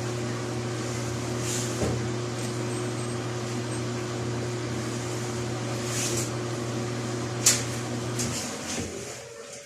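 Steady electric hum of a small motor running, with a knock about two seconds in and a sharp click shortly before the hum cuts off, about eight seconds in.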